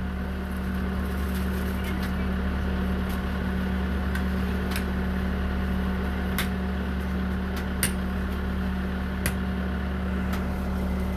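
A steady low engine hum, with scattered short scrapes and knocks of rakes and shovels working wet concrete.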